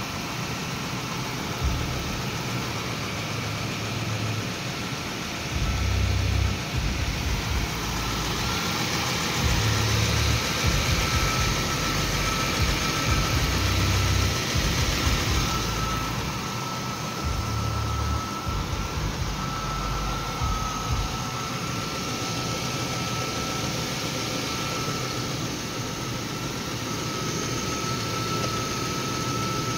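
Chevrolet 3.4 V6 engine idling steadily after a thermostat replacement, running where before it stalled once hot, with a thin steady high tone over the hum; it gets somewhat louder for a stretch from about six seconds in.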